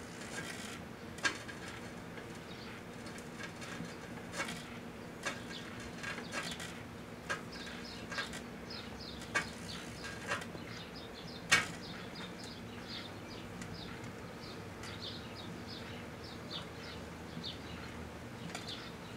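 Proctor-Silex microwave oven humming while a 5 1/4-inch floppy disk drive burns inside it, giving off sharp pops and crackles, the loudest about eleven seconds in. From about twelve seconds on, the pops give way to a quick run of small high-pitched crackles.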